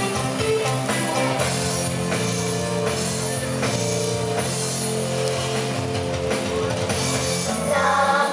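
Recorded pop-rock song played as dance music, with drum kit, guitar and singing; the vocal line comes in more strongly near the end.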